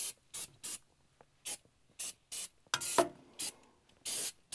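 Aerosol can of multi-purpose lubricant sprayed in short hissing bursts, about two or three a second, with one longer burst about four seconds in, onto the pivot points of a tractor's three-point hitch.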